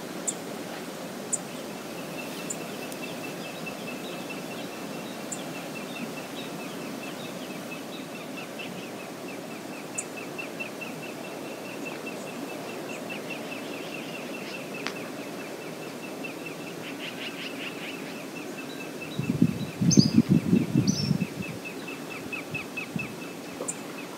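Steady rushing of river water, with a quick run of high chirps on one pitch going on throughout and a few sharp high ticks. About 19 seconds in, a loud rough rumble lasts about two seconds.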